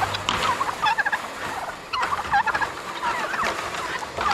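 Turkey gobbling in repeated short, rapid warbling bursts, several in a row, over a steady hiss.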